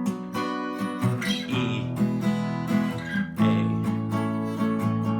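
Acoustic guitar strumming chords in the key of A, changing chord about a second in and again a little past three seconds in.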